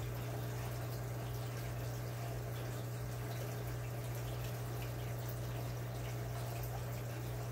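Aquarium filter running: water trickling and dripping over a steady low hum.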